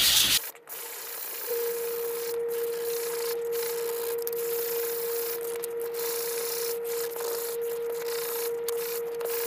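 Hands rubbing and smoothing paper down against a book's inside cover: a dry, papery hiss that comes in strokes with short gaps, loudest at the very start. A steady faint hum starts about a second and a half in and runs on underneath.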